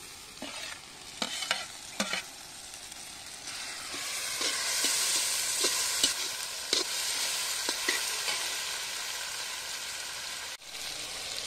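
Chopped tomatoes and onions frying in hot oil in an iron kadai, stirred with a metal slotted ladle. A few light clinks of the ladle come first, then the sizzle builds from about three seconds in as the tomatoes are turned into the oil, with the ladle knocking and scraping against the pan.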